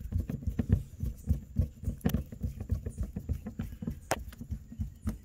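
Hand screwdriver turning a screw down through a kayak hatch ring into the plastic hull: a quick run of small low knocks and creaks, several a second, with a sharper click about two seconds in and again about four seconds in.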